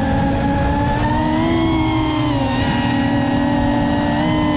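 FPV quadcopter's brushless motors whining, recorded by the camera on the drone. The pitch holds fairly steady, with small rises and dips as the throttle changes.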